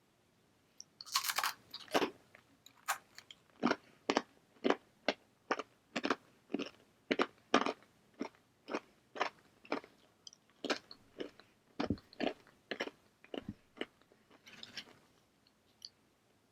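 Blue corn tortilla chip bitten with a loud crunch about a second in, then chewed in a steady run of crisp crunches, about two a second, softening to quieter chewing near the end.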